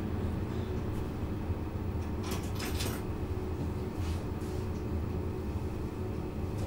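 Cabin sound of a Bombardier Flexity Outlook C low-floor tram: a steady low rumble under a faint steady hum, with a short burst of rattling about two and a half seconds in.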